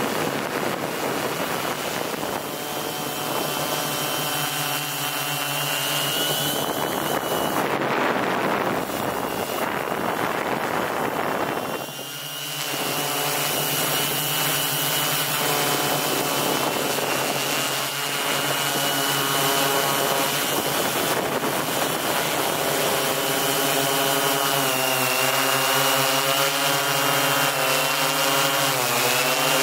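M690L drone's electric motors and propellers whirring in flight, the pitch of the whine drifting up and down as the motors change speed. From about seven to twelve seconds in, a stretch of rushing noise covers it.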